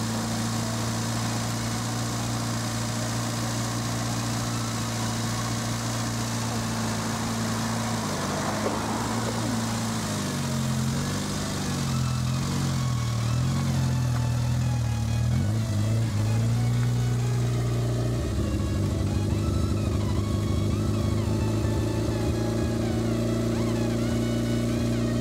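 Background music: held bass notes that step to new pitches every few seconds, with a melody gliding above them.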